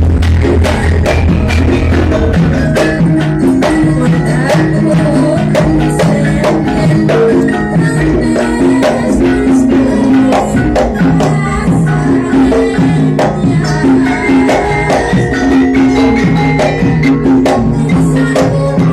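Loud music with a fast, steady percussion beat under held melodic notes.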